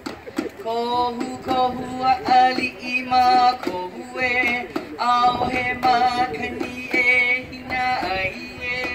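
Hawaiian hula song sung in long held notes with vibrato, one phrase after another.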